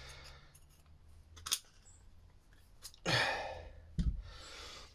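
Small handling noises from a dismantled disposable vape: a sharp click about a second and a half in and a short knock just after four seconds, with a sigh-like breathy exhale about three seconds in.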